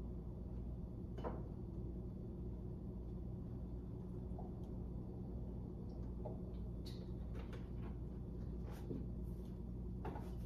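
Light clicks and knocks of kitchen utensils and containers being handled, over a steady low hum in the kitchen.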